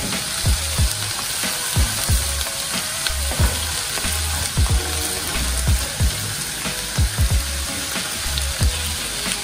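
Potato slices sizzling as they fry in butter in a pan. Frequent short knocks come from a ladle against the pan as the slices are turned over.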